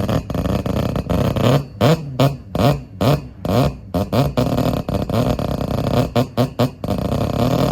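Modified car engine revved in quick, repeated blips, each rising and falling in pitch, with crackling pops between them.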